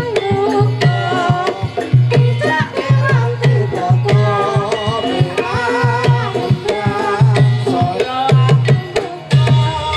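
Javanese gamelan music for a kuda kepang dance: kendang hand drums beat a driving rhythm of deep strokes about twice a second with sharp slaps between, under a wavering, bending melody line.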